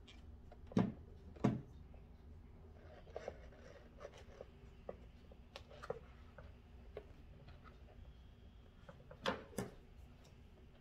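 Handling knocks and small clicks of a rolled plastic chopping mat and a wire napkin holder being moved and set down on a table. There are two sharper knocks about a second in and two more near the end.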